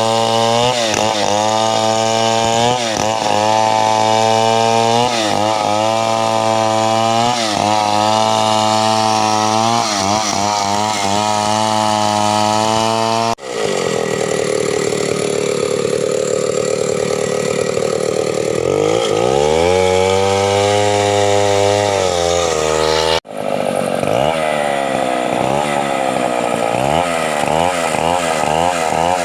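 Two-stroke chainsaw running hard while cutting wood, its engine pitch dipping and recovering again and again as the chain bites under load. The sound breaks off abruptly twice and picks up again straight away; in the middle stretch the engine holds a steadier, higher pitch before dropping.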